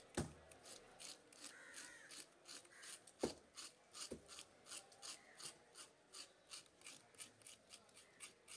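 Fish scaler scraping the scales off a red snapper in quick rhythmic strokes, about four a second, with a few dull knocks of the tool on the chopping block.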